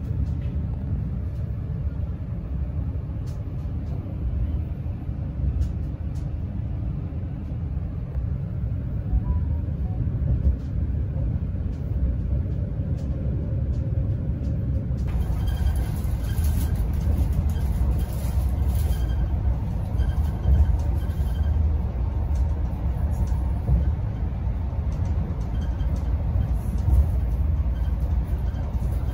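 Steady rumble of a Blues InterCity train running at speed, heard inside the passenger coach: wheels on the rails and body noise. About halfway through it turns brighter, with more hiss. Much of the noise comes from the track of this line rather than the train itself.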